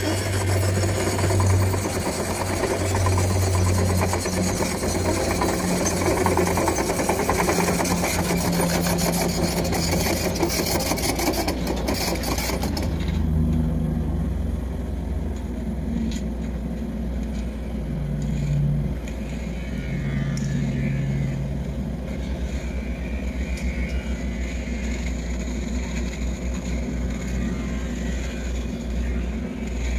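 Engine of the construction machine lifting the concrete bucket, running and shifting in pitch as it works. A loud hiss sits over it for about the first thirteen seconds and cuts off suddenly.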